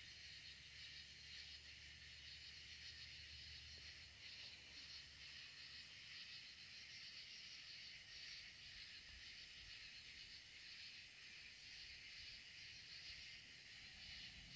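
Near silence: a faint, steady high hiss of outdoor night ambience, with no distinct event.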